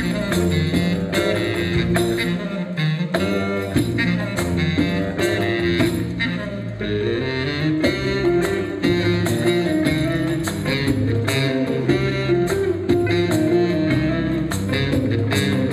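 Live instrumental band music: a reed wind instrument carrying the melody over electric bass and a small electric plucked string instrument, with a hand-held tambourine keeping a steady beat.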